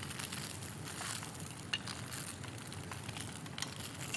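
Steamed shrimp rolls pan-searing in a lightly oiled frying pan: a steady sizzle, with a few light clicks.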